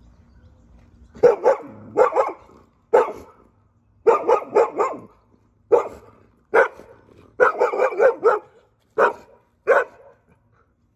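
Goldendoodle barking repeatedly in quick bursts of two to five barks, from about a second in until near the end: reactive barking at a person approaching.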